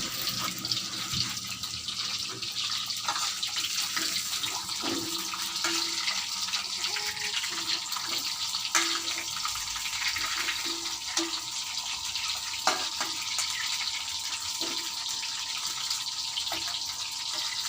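Brine-soaked, half-cooked cassava pieces sizzling steadily in hot frying oil, with occasional pops.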